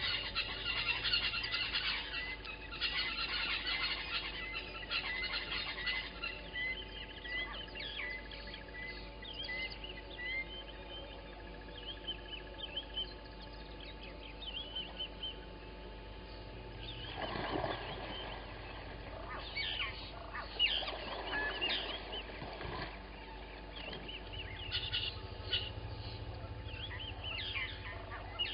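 Wild birds calling in chorus: many short chirps and whistles. For the first ten seconds one bird repeats a short high note about every half second. Louder, harsher calls come twice in the second half.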